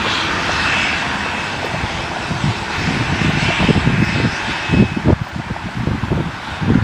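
Airliner engines running loud and steady, a dense rushing noise with a faint high whine in the first seconds.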